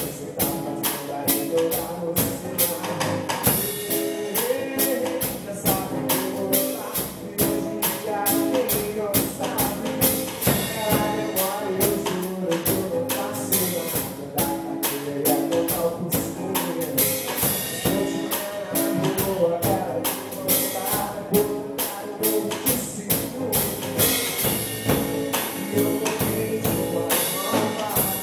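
A band playing an upbeat song: a fast, steady jingling percussion beat over held chords.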